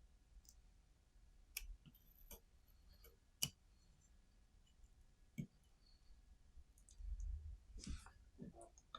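Faint, scattered clicks and light scrapes of an X-Acto hobby knife blade cutting around a sticker on the underside of a camera tripod mount, with a soft handling bump near the end.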